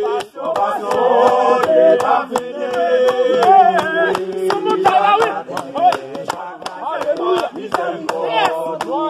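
Several voices singing a Haitian Creole worship song together, with hand-clapping keeping a steady, fast beat.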